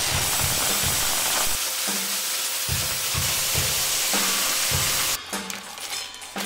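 Electric drill spinning a homemade plastic-bottle grinder with glassy lumps of re-melted polystyrene foam churning inside, a dense even noise that cuts off about five seconds in. A steady drum beat of background music runs underneath.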